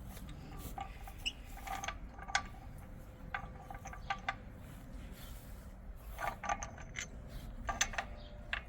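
Scattered metallic clinks, knocks and scrapes, irregular and short, from the combine's heavy wheel being worked onto its hub.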